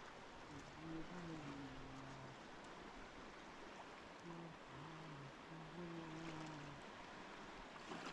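Steady rush of flowing river water, faint, with low voices now and then.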